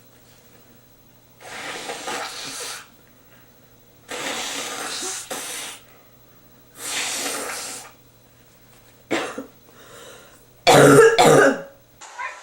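A person blowing their nose three times, each a long noisy blast of about a second, then a short snort and one loud, voiced sneeze near the end.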